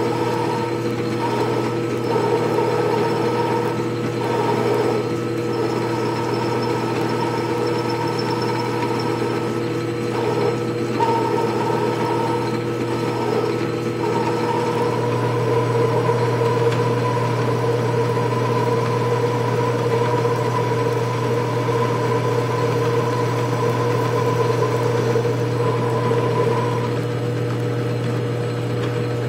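Atlas 618 bench lathe running steadily, its motor and belt drive humming, while a ball-turning attachment is swung by hand to cut the spinning workpiece. A higher whine comes and goes over the first half, holds steady through the middle and stops a little before the end.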